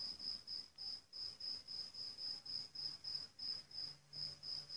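Field cricket chirping: a high-pitched chirp repeated evenly, about three times a second.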